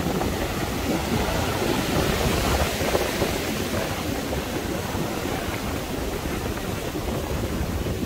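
Wind buffeting the microphone over the wash of surf on a beach: a steady, rushing noise.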